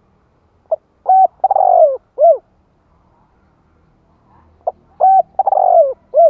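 Spotted dove cooing: two phrases about four seconds apart. Each has a quick opening note, a short coo, a long coo that falls in pitch, and a short closing coo.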